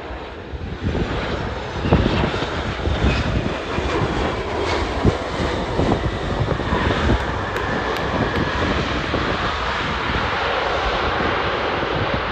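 Airliner engines on landing approach passing close by: a loud, steady roar that swells about two seconds in and holds, with wind buffeting the microphone.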